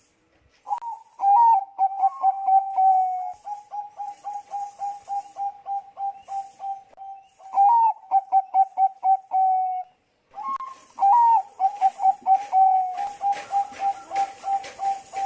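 Zebra dove (Bangkok-bred perkutut) cooing: two bouts of song, each opening with a higher note and then a fast, even string of short coos, with a pause of about a second between the bouts.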